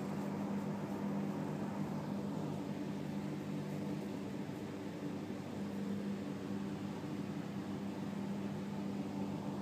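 Domestic cat purring steadily, close up, while being stroked on the head: a low, even purr that eases briefly near the middle, the sign of a content, relaxed cat.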